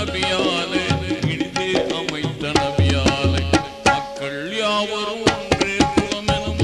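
Instrumental interlude of a Tamil Islamic devotional song: tabla playing a steady, busy rhythm with deep bass strokes, under a gliding melodic line.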